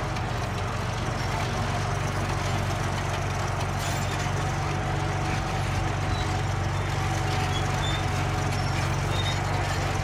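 Crawler bulldozer's diesel engine running steadily under load as the blade pushes a mass of soil. A steady thin whine sits above the low engine drone.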